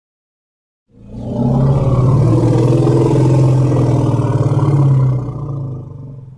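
Daspletosaurus roar sound effect: one long, low-pitched roar that starts about a second in, holds steady, then fades out near the end.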